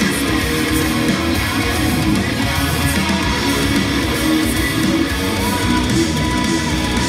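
Electric guitar played through a Line 6 Helix amp modeller: a continuous heavy metal passage, loud and steady with no pauses.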